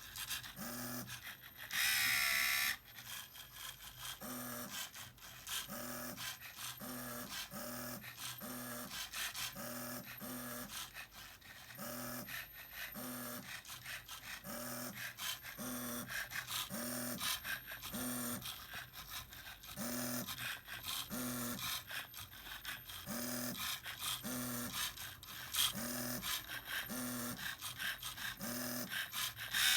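Small electric motors of a Lego Mindstorms printer running in short whirring bursts about once a second, with a longer, louder whine about two seconds in.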